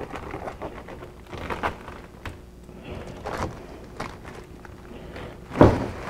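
Heat-sealed plastic packaging crinkling and rustling as it is cut and pulled off a new CV axle, with scattered small knocks from handling and a louder knock about five and a half seconds in.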